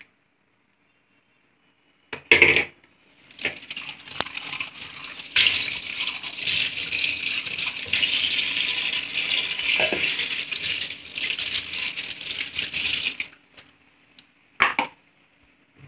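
Water running from a tap into a steel kitchen sink for about ten seconds, starting after a sharp clatter and stopping suddenly, with a short knock near the end.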